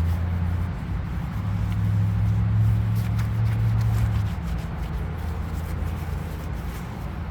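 A low, steady engine-like hum, louder for the first four seconds or so and then fading, with faint small ticks of handling over it.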